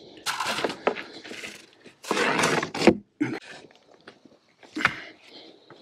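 A plywood panel being wrenched off a wooden box frame: two long scrapes of wood on wood, about half a second and two seconds in, with smaller rattles and a sharp knock near the end.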